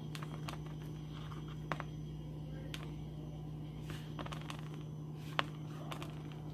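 A hand dredging a tilapia fillet in a plate of all-purpose flour: faint handling with scattered light clicks and taps against the plate, the sharpest about five seconds in, over a steady low hum.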